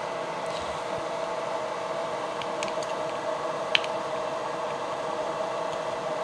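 Steady hum of a fan or air-conditioning unit, with a few light clicks as a flathead screwdriver pries at the seam of a plastic USB flash drive casing; the sharpest click comes a little past halfway.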